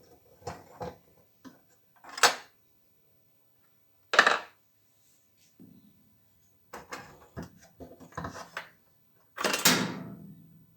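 Metal tools and parts being handled, in a series of separate clinks and knocks. The loudest come about two and four seconds in, and a clattering knock near the end trails off briefly.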